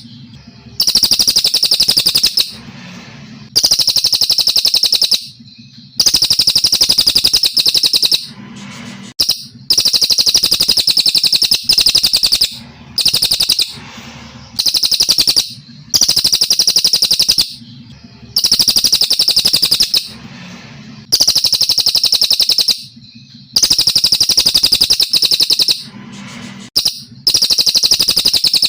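A cililin (brown cililin, the rufous-tailed shama) singing long, high, trilled phrases of about two seconds each, repeated about every two and a half seconds with short pauses between, in the steady pattern of a songbird training ('masteran') recording.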